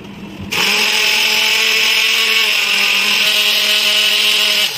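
Electric mixer grinder (mixie) switched on about half a second in, its motor running at a steady high speed as it grinds onion, chilli, ginger, garlic and nuts into a paste. It stops near the end.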